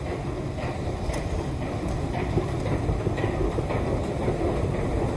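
Stockholm metro train running: a steady rumble with faint regular clicks about twice a second.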